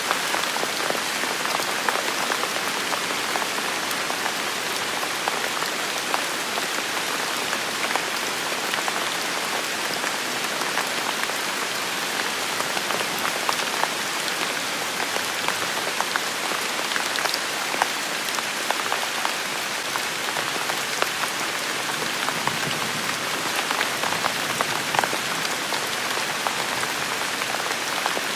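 Steady rain falling on a surface, a constant hiss dotted with the ticks of individual drops.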